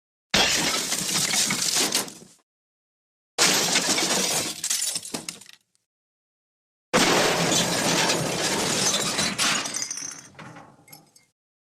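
The MGM 'Elephant Smash' cartoon crash sound effect played three times: each is a sudden crash of shattering glass and debris that trails off over a few seconds, with dead silence between. The third one runs longest, with scattered pieces still tinkling as it dies away near the end.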